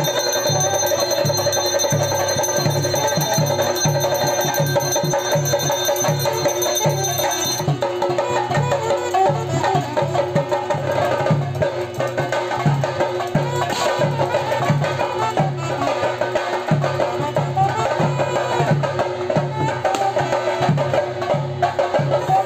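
Theyyam ritual drumming: traditional percussion music with a steady low drumbeat of about two strokes a second. Over it runs a held higher tone that drops out about eight seconds in.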